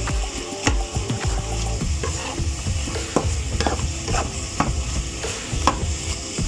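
A spatula stirring and scraping meat and vegetables around a nonstick frying pan, with a stroke about twice a second, over the steady sizzle of the food frying.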